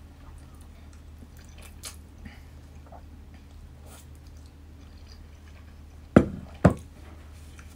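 A person quietly eating spicy noodles with chopsticks, chewing and slurping, with two short, sharp knocks half a second apart near the end that are louder than the eating.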